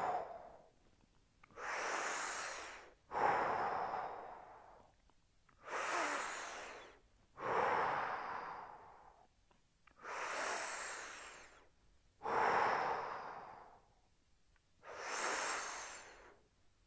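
A man breathing slowly and deeply, with audible in-and-out breaths about one every four seconds, while holding a stretch.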